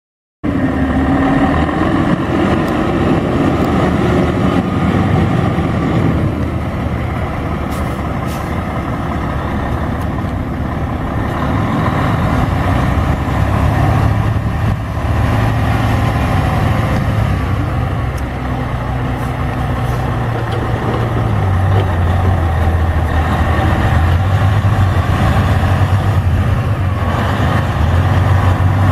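Detroit Diesel Series 60 14.0-litre inline-six diesel of a Freightliner Columbia semi tractor, running steadily and loudly, with its pitch shifting a few times as it is worked. The sound cuts in suddenly just after the start.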